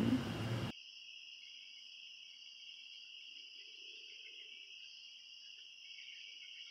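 Steady chorus of crickets, a continuous high-pitched trill in two bands, starting abruptly under a second in.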